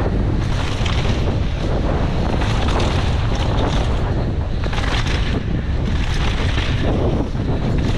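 Heavy wind noise on the camera microphone at speed, over the steady rumble and crunch of a downhill mountain bike's knobby tyres rolling fast over dry, loose dirt and gravel.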